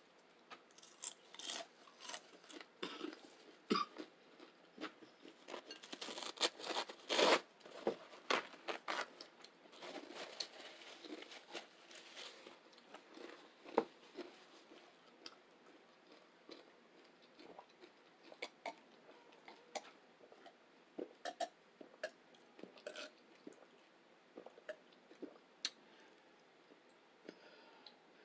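Close-up eating sounds: chips topped with chili and beans being bitten and crunched, then chewed. The crunching is dense for the first dozen seconds or so, then thins out to scattered chewing clicks.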